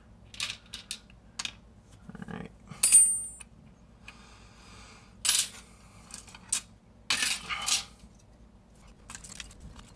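Small plastic and metal tape-measure parts being handled and set down on a wooden board: scattered clicks and clacks, with a sharp metallic clink about three seconds in and a brief scraping just after.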